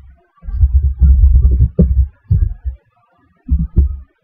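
Typing on a computer keyboard, picked up as an irregular run of dull, low thumps.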